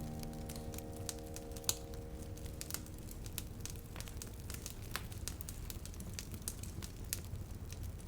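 A sustained piano chord dies away, then faint, irregular crackling and clicking continue over a low hiss.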